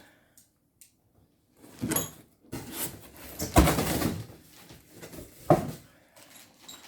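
Cardboard and plastic packaging rustling as parts are pulled out of a box, with a short knock about five and a half seconds in.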